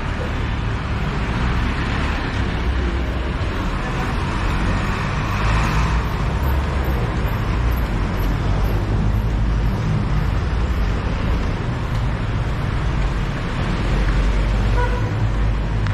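Steady city street traffic noise: engines and tyres of passing cars and jeepneys, with a deep rumble throughout that swells for a moment about five seconds in.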